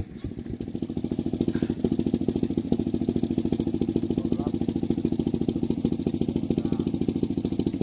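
Small boat engine running with a fast, even pulsing beat, picking up in the first second and then holding steady.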